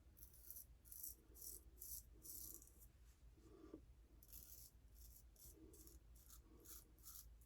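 Faint scraping of a 6/8 Damascus straight razor cutting through lathered stubble in short, quick strokes: a run of about six strokes, a pause of about a second in the middle, then another run of about seven.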